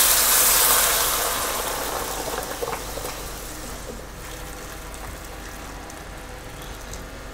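Hot water poured from a glass measuring jug into a hot wok of pan-fried fish bones and ginger, the start of the stock. There is a loud splashing hiss at first as the water meets the hot pan, fading away over about four seconds as the pour goes on.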